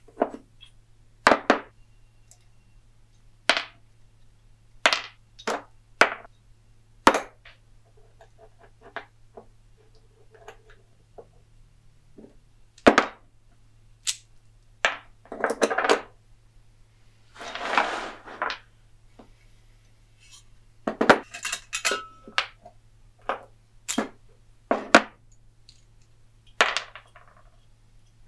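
Small metal bandsaw parts (bolts, guide blocks and bearings) clinking and knocking as they are taken apart by hand and set down on a wooden workbench, in irregular sharp taps. A couple of longer scraping sounds come a little past the middle.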